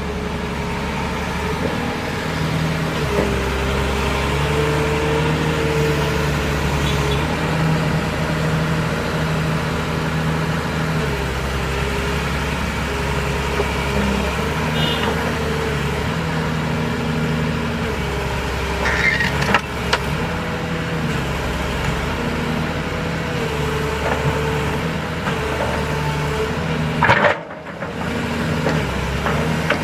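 Excavator diesel engine running steadily, its pitch shifting up and down every few seconds as the hydraulics take and release load. A couple of short sharp knocks come in the second half.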